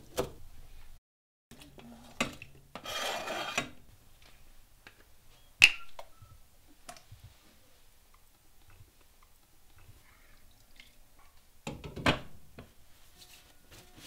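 Kitchen cooking sounds: a few knife chops on a cutting board at the start, then ingredients and a metal utensil clattering in a metal pot. A sharp metallic clink comes about five and a half seconds in, and another clatter comes near the end.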